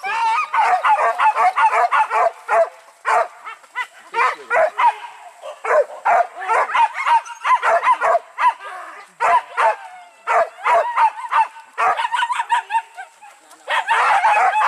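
Pack of hunting dogs on a wild boar hunt barking and yelping excitedly, several dogs calling over one another in quick, unbroken succession, thickest near the end.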